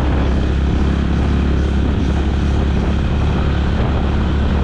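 Motorcycle engine running at a steady cruise, heard from the rider's seat as a constant low drone with a rush of road and wind noise over it.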